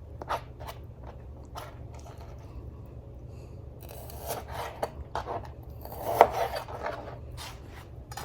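Knife cutting raw chicken into chunks on a cutting board: scattered light taps of the blade on the board and short scraping slices.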